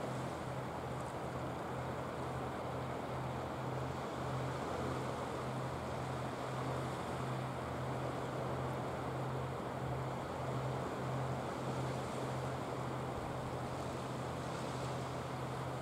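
A fishing boat's engine running steadily, a low hum with a slight pulse, as it holds the boat's bow pushed against an offshore rock. Wind and waves wash underneath.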